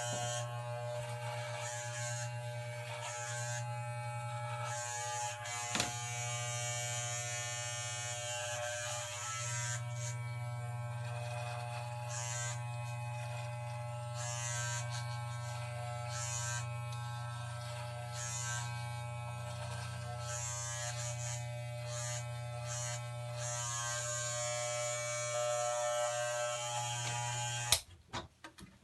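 Electric hair clippers buzzing steadily while trimming hair, with a fluctuating high hiss over the even buzz. They switch off with a click near the end, followed by a few light knocks.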